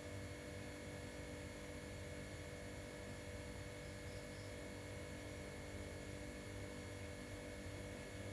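Steady faint hum with several constant tones over a low background noise, holding unchanged throughout.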